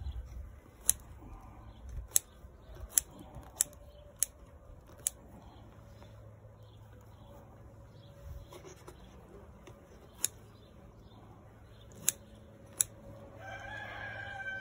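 Scissors snipping through microgreen stems. There are sharp, crisp snips, six in quick succession over the first five seconds, then three more between about ten and thirteen seconds in.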